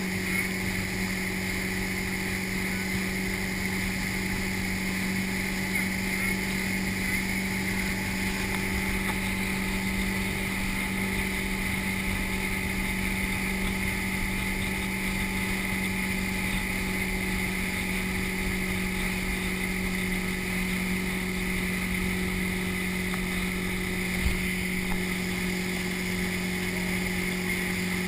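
Motorboat engine running at a steady cruising speed while towing a water skier, its even drone over the rush of the boat's wake.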